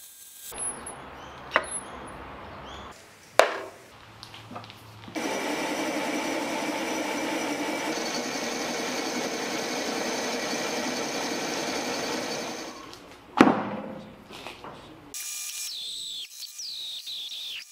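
Metal lathe turning a steel roller blank, the cutting tool running along it to strip the mill scale, with a steady machining noise through the middle and a few sharp knocks. High chirping starts near the end.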